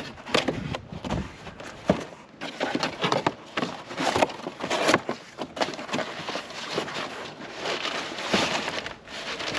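A cardboard shipping box being opened and unpacked: irregular scraping and rustling of cardboard and packing, with a few sharp knocks.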